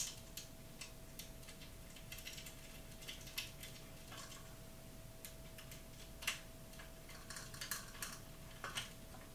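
Light metallic clicks and short scrapes of a screw being fitted and turned with a screwdriver into a telescope mount to fasten a motor drive's bracket, with a sharper click at the start and another about six seconds in.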